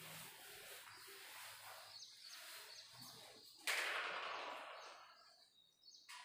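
A whiteboard duster wiping across the board for about three seconds, with a few faint high chirps. Near the end a sudden loud rush of noise starts and fades away over a second or two.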